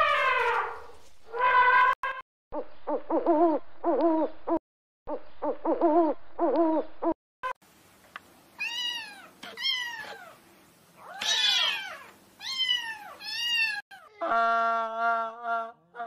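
An elephant's trumpet falls away and ends within the first second. After a run of short pitched calls, kittens mew over and over, each mew rising and then falling in pitch, and near the end a lower, steady held call begins.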